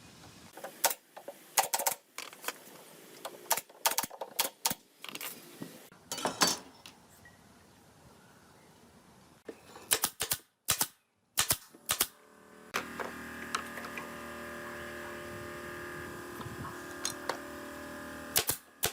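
Irregular sharp taps and clicks, with a quiet gap in the middle, then a steady hum of several held tones starting about thirteen seconds in.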